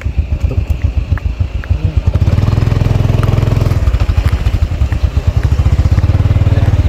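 A small engine running close by, its rapid firing pulses quickening about two seconds in, easing briefly near the middle, then quickening again.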